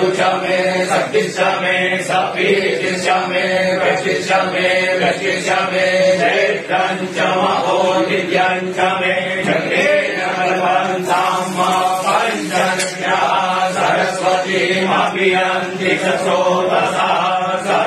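Continuous chanting of Hindu mantras for a Shiva abhishek: steady unbroken recitation over a low held tone.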